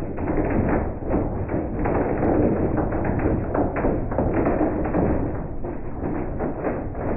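Hail pelting a vehicle cab: a dense, irregular rattle of hits.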